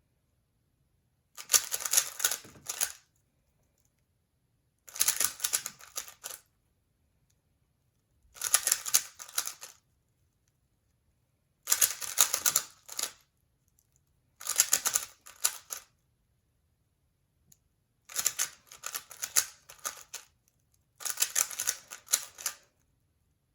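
A 3x3 speed cube being turned quickly by hand: seven bursts of rapid plastic clicking and clacking, each lasting a second or two, with silent pauses between them.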